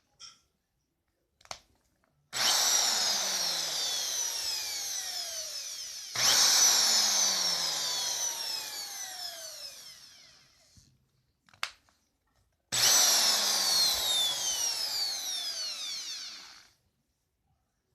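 DWT SBM-500 electric drill's motor run three times, each time starting at speed and winding down with a falling whine, with a brief click before the first and third runs.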